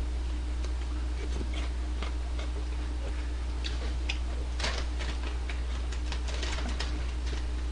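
Scattered small clicks and crackles of crispy fried chicken being handled and eaten, thickening into a denser crackle from about halfway through, over a steady low electrical hum.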